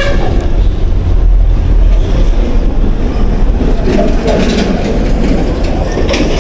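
Wind buffeting the camera's microphone: a loud, uneven low rumble that swells and eases.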